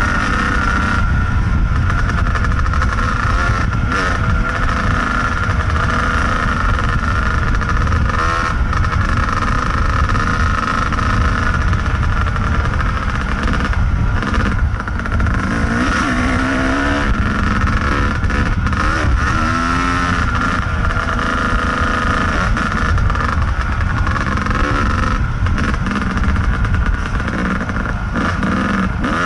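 Kawasaki KDX220 two-stroke single-cylinder dirt bike engine running under way on a trail, its revs rising and falling steadily with the throttle.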